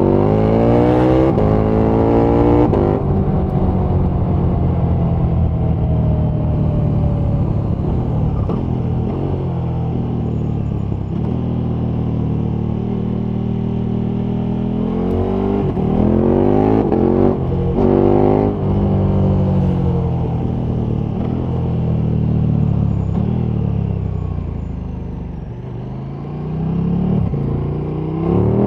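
KTM 1290 Super Duke R's 1301 cc V-twin under way: the engine note climbs and is cut short by quick upshifts, twice, at the start and again around the middle. Between those it runs more steadily; later the note falls away as the bike slows, then climbs again near the end.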